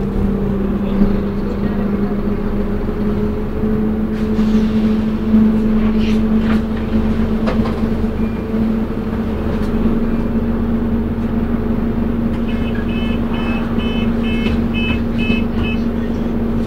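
Inside a moving London bus: the engine and drivetrain run steadily at speed with a low rumble and a constant droning hum and whine, plus occasional knocks and rattles. Near the end a series of short electronic beeps comes about twice a second for a few seconds.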